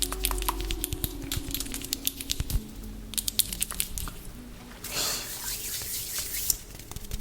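A voice humming a slow tune, with close-up ASMR trigger sounds: a run of crackly clicks and taps, and a short hiss about five seconds in.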